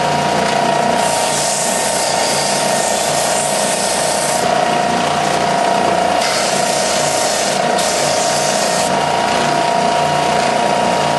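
Ridgid oscillating belt and spindle sander running with a steady motor whine while a rubber sanding-belt cleaning eraser is pressed against the moving belt. A harsher scrubbing hiss rises twice, for a few seconds each time, while the eraser is held on the belt to clean it.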